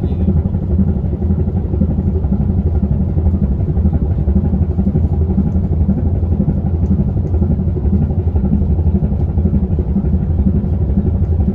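Car ferry's diesel engines running steadily under load, a deep continuous rumble, while the ship makes a full turn to port.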